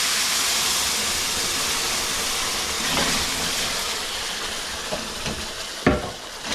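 Pureed tomatillo and chile salsa verde sizzling and sputtering hard as it sears in a very hot pan. The sizzle eases slowly, with one sharp knock near the end.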